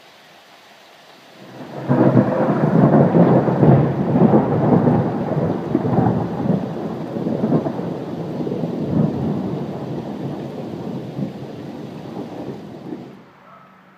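Thunder: a sudden loud crack about two seconds in, then a long crackling, rolling rumble that slowly fades and dies away near the end.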